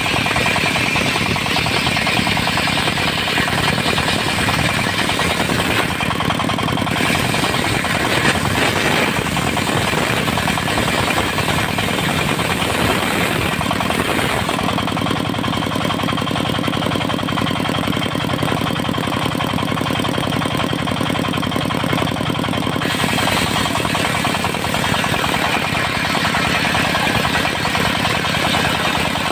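Engine-driven circular sawmill running steadily, with a fast knocking engine beat. Its sound shifts for several seconds in the middle, the hiss thinning out and the engine tone steadying, before returning.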